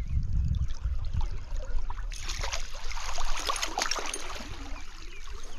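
Stream water running and splashing close to the microphone, with the splashing growing busier about two seconds in.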